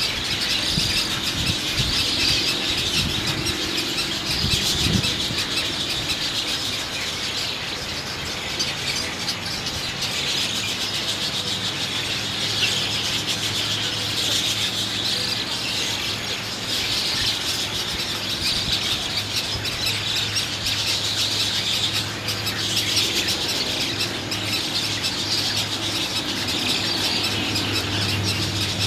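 Roseate spoonbill chicks begging for food in the nest: a continuous high-pitched squealing chatter that swells and fades in loudness.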